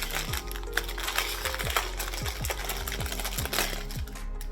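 Background music with a steady bass beat, over light clicking and rustling as the tiara and its packaging are handled.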